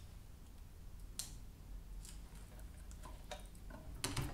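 Hands handling a small amplifier circuit board and its wires, making a few faint scattered clicks and light rustles, with a short cluster of clicks near the end as the board is pressed onto the intercom speaker panel with an adhesive pad.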